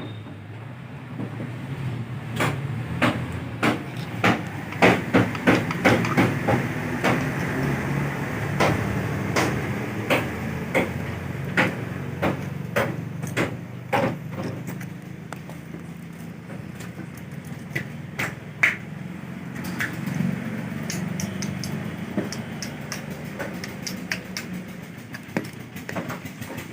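Irregular metal knocks and clinks of hand tools striking engine parts, most closely bunched in the first half, over a steady low hum.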